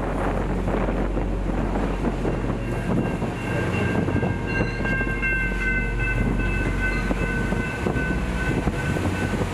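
A moving train's steady rumble and rattle, with Milwaukee Road 261's steam whistle sounding one long chord blast of about six seconds, starting about three seconds in.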